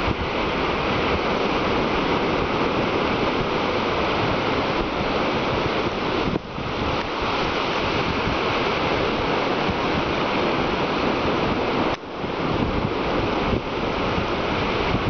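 Ocean surf washing onto a beach, with wind buffeting the microphone. The noise dips briefly twice.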